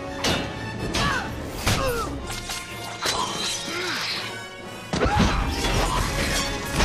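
Dramatic film score over fight sound effects: several sharp hits in the first couple of seconds, then a heavy, low rumbling crash from about five seconds in that cuts off abruptly near the end.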